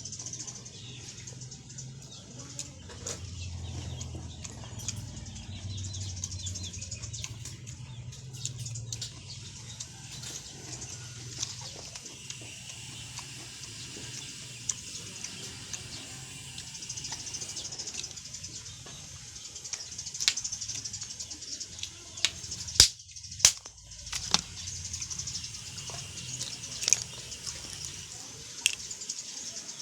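Someone eating: chewing and handling food, with scattered sharp clicks and taps, two louder ones close together about two-thirds of the way in, over a steady high background hiss with birds.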